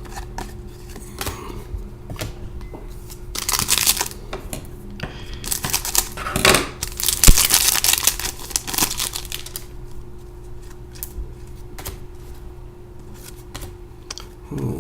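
Trading-card pack wrapper and cards being handled, crinkling and tearing in two spells, a short one about three and a half seconds in and a longer one from about five and a half to nine seconds, over a steady low hum.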